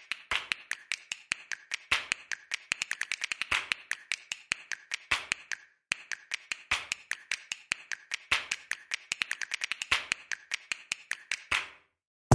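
A fast, uneven run of sharp clicks, in two spells of about six seconds with a short break between them.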